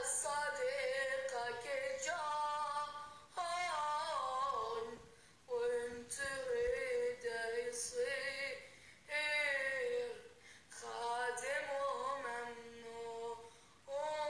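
A high young voice singing unaccompanied, a wavering, ornamented melody in phrases of a few seconds with short breaks for breath between them.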